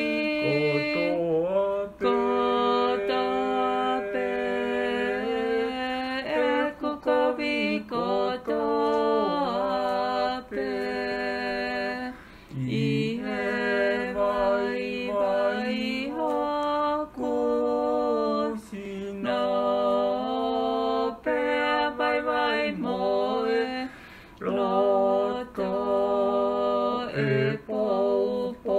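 Voices singing a hymn in Tongan, unaccompanied, in long held phrases with brief pauses between them.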